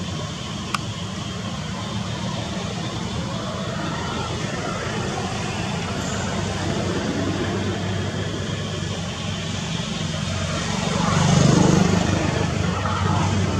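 Steady outdoor background noise with a low engine-like hum, swelling louder about eleven seconds in, with a single sharp click about a second in.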